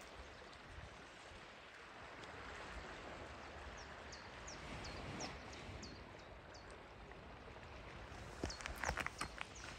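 Steady outdoor hiss of wind and sea, with a small bird giving a run of short high chirps, about three a second, from about four seconds in and again near the end. Near the end, a brief cluster of sharp clicks and rustling close by is the loudest sound.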